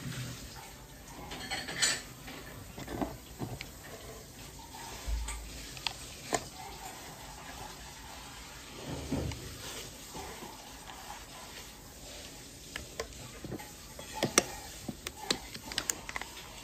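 Handling noise from an ADT R43SG M.2-to-PCIe adapter board and its cable being lifted out of foam packing: scattered light clicks, taps and rustles of foam and plastic, with a couple of soft low thumps and a run of sharper clicks near the end.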